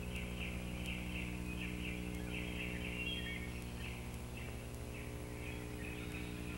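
Outdoor ambience of birds chirping, short high calls repeating several times a second and thinning out after the first few seconds, over a steady low electrical hum.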